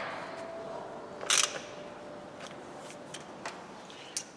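Hand tools worked on the front of the engine: a short metallic rasp about a second in and a sharp click near the end.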